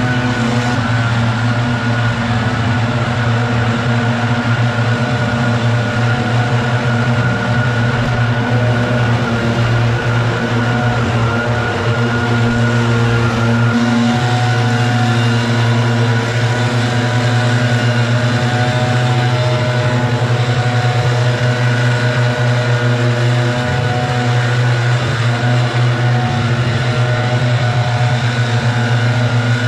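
Several two-stroke backpack leaf blowers running together at full throttle, a steady loud engine drone with the blowers' air rush.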